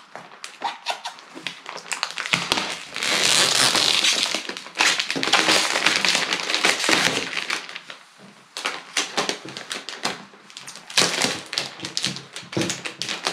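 Protective plastic wrap being peeled and crinkled off a new laptop. There are longer stretches of rustling, loudest a few seconds in, and many short taps and clicks of handling.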